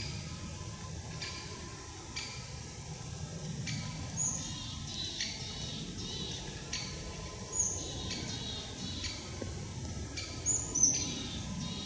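Small forest birds calling: short high calls repeating every second or so, with a few brighter chirps, over a steady low background noise.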